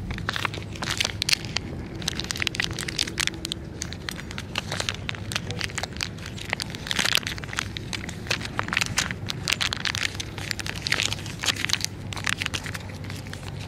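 Irregular crackling and crinkling from a plastic cat-food pouch being squeezed over a metal plate while a cat eats from the plate, crunching dry kibble. A steady low rumble runs underneath.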